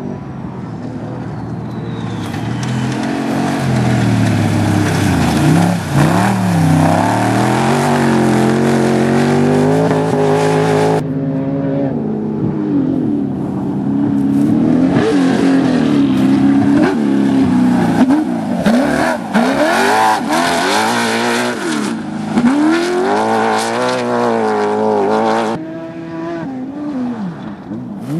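Pro Buggy off-road racing buggies' engines at hard throttle, the pitch climbing and dropping again and again with throttle and gear changes over rough ground. The sound breaks off abruptly about 11 s and 25 s in as one buggy gives way to the next.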